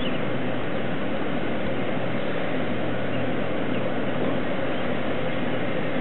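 Steady, even background noise with a faint low hum underneath, unchanging throughout, with no distinct events.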